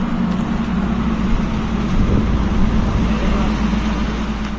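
Cargo truck engine running steadily, a constant low hum.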